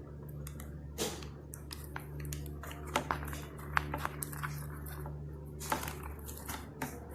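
Rustling, with irregular light clicks and taps, from satin fabric being handled and pulled tight around the back of a handmade plaque. A steady low electrical hum runs underneath.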